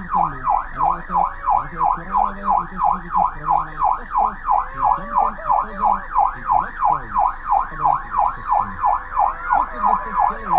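Police car siren on its fast yelp setting: a wail rising and falling about three and a half times a second, steady throughout.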